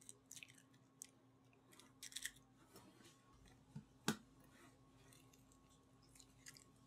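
Eggshells being cracked and pulled apart over a glass mixing bowl: scattered small crisp crackles, with one sharp tap a little after the middle.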